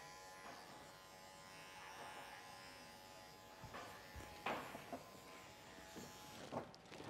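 Electric grooming clippers buzzing faintly with a steady hum that fades over the first few seconds, followed by a few short sharp sounds in the second half.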